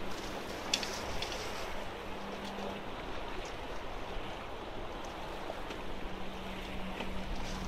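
Small sea waves washing and splashing against the rocks of a jetty, a steady wash of surf.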